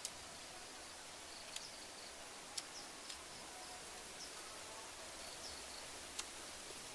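Steady outdoor background of insects buzzing, with a few sharp clicks scattered through it and some faint short high chirps.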